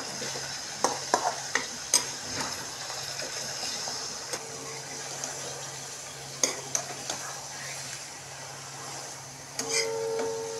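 Chicken pieces sizzling in hot oil and fried onions in a metal kadhai while being stirred with a steel spoon, which clinks and scrapes against the pan in a few sharp knocks, mostly in the first two seconds, around six and a half seconds in and near the end.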